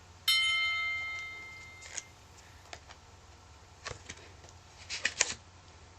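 A metallic chime struck once, ringing with several clear tones and fading over about a second and a half, followed by a few scattered soft clicks and taps.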